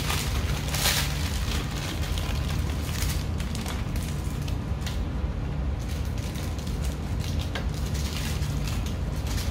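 Plastic instant-ramen packet crinkling and rustling as it is handled, emptied into a pot and a seasoning sachet torn open, in several bursts, the loudest about a second in, over a steady low hum.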